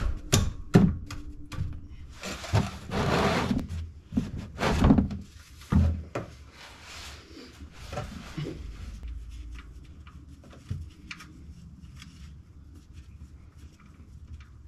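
Knocks, clunks and scraping from working under a car: a plastic oil drain pan shifted over the concrete floor and a ratchet with extension set on the oil drain plug. The loud handling noises fall in the first six seconds, then faint scattered clicks.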